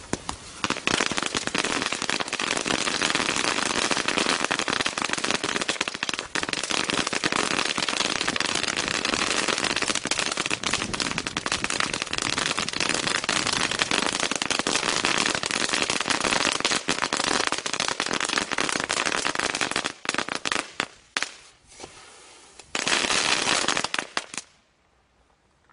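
Absolute Fireworks 844 Crackling Whip ground firework, crackling densely and without a break for about twenty seconds. It then sputters in short bursts, flares once more in a brief dense crackle near the end, and dies out.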